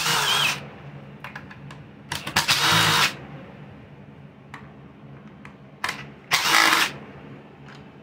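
Cordless driver spinning out the screws on a hedge trimmer's engine cover in three short runs, at the start, about two seconds in and about six seconds in.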